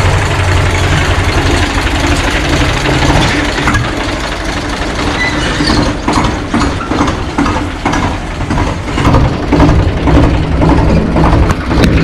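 Eicher tractor's diesel engine running steadily at low speed as the tractor is driven off.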